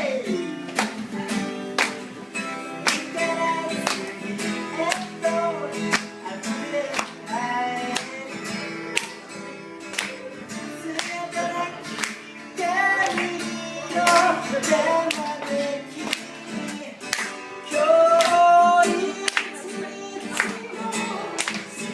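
Acoustic guitar strummed in a steady rhythm, with a voice singing the melody of an original song over it.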